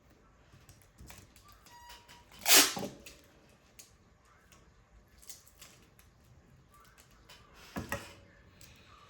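Paper being handled while crafting: faint taps and small rustles, with two louder rustling swishes, the louder about two and a half seconds in and another near the end.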